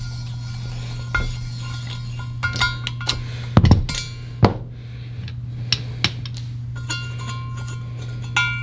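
Hand ratchet turning a Time-Sert thread tap in a stripped spark plug hole of an aluminum cylinder head: irregular ratchet clicks and light metal-on-metal clinks as the tool is worked in short strokes.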